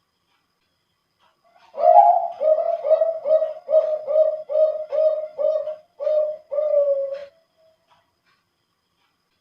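Male Bangkok-line zebra dove (perkutut) singing one song phrase with a thick, deep voice: it begins about two seconds in, a quick run of about ten short coos, about two a second, ending in two longer drawn-out notes.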